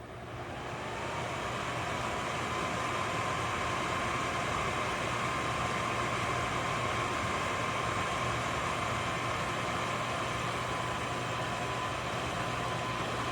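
Tower fan starting up: the rush of air builds over about a second and then holds steady, with a thin, steady motor whine over it.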